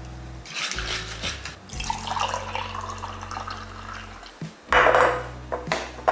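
Background music with low held notes over kitchen sounds: running water and dishes clinking, with a louder rush of noise about five seconds in.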